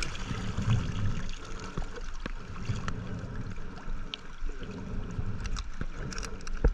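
Water sloshing and gurgling close to the microphone, with a low, uneven rumble and scattered small clicks.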